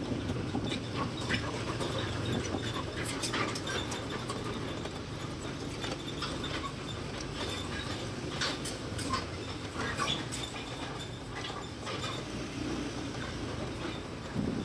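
Footsteps crunching and clicking irregularly along a gritty alley, over a steady low rumble of road traffic.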